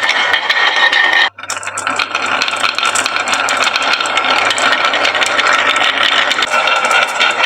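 Many marbles clattering down a wooden HABA marble run in a dense stream of rapid clicks, over a steady whine and low hum. The sound cuts out briefly about a second in, then resumes.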